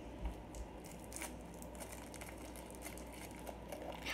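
Plastic lollipop wrapper being peeled off by hand, crinkling in faint, scattered small crackles.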